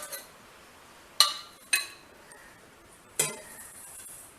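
Kitchen utensils clinking against each other: three sharp clinks with a short ring, about a second in, half a second later, and near the end.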